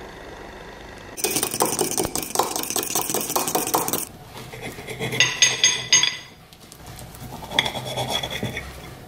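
Metal spoon stirring a thick mixture in a ceramic mug, scraping steadily against the inside, then a quick run of ringing clinks on the mug. Near the end, a knife scrapes across a ceramic plate as it cuts through a pancake.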